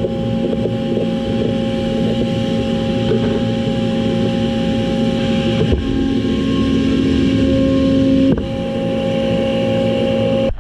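Metalworking machine tool running steadily while machining a steel pistol barrel, a motor hum with several held tones over cutting noise. The tones shift about six seconds in and again a little after eight seconds as the machine changes speed or cut.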